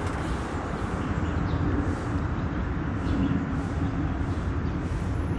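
Steady rumble of a vehicle travelling along a road, with a faint engine hum.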